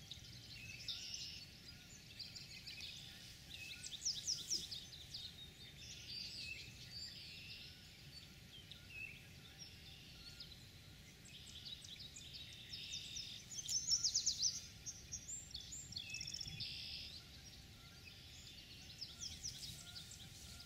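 Several songbirds singing and calling together in a spring chorus, with quick chirps and a few fast trills, the loudest about four seconds in, around the middle and near the end. A steady low rumble runs underneath.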